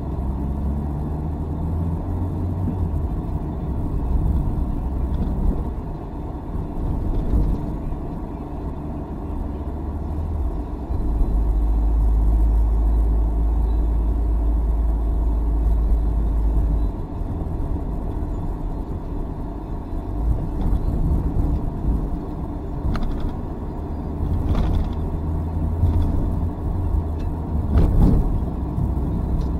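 Car driving in town, heard from inside the cabin: a steady low rumble of engine and tyres on the road. The rumble grows deeper and louder for several seconds in the middle, and a few light knocks come near the end.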